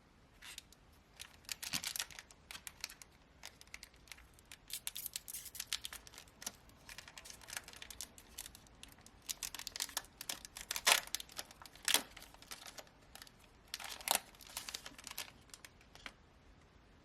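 Foil trading card booster pack being torn open and crinkled, a run of irregular crackling rips and rustles with a few sharper, louder tears.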